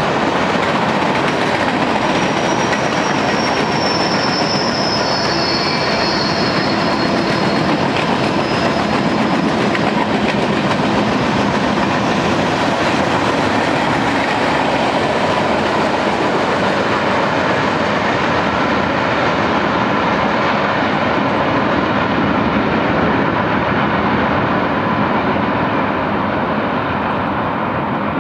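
Freight train's boxcars rolling past on a curve: steady rumble of wheels on rail, with a thin high wheel squeal from about two to seven seconds in. The sound thins and drops a little near the end as the train draws away.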